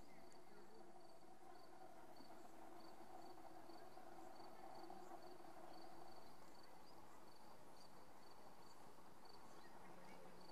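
Faint meadow insect stridulating: a high, thin chirp repeating evenly a couple of times a second. Under it runs a faint low steady hum that fades out about two-thirds of the way through.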